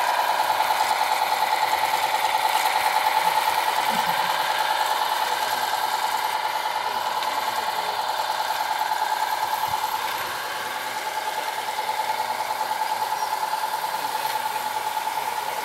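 A 16mm-scale model diesel locomotive running on a garden railway with a steady, engine-like mid-pitched hum and a fast, even pulse. The hum fades somewhat as the train pulls away.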